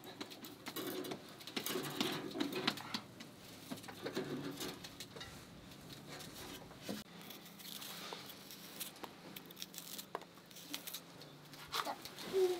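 Soft patting and scattered light taps of hand work at a hearth: bread dough being patted and shaped, and kindling being handled. A few faint short pitched calls sound in the background.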